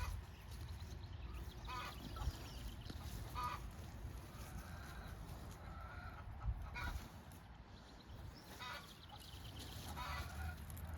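Chickens clucking in short calls every second or two, one call held a little longer about halfway through, over a low rumble.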